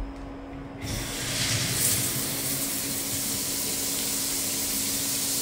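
A shower is turned on at its single-handle valve. About a second in, water from an overhead rain shower head starts spraying and splashing down in a steady hiss, over a steady low hum.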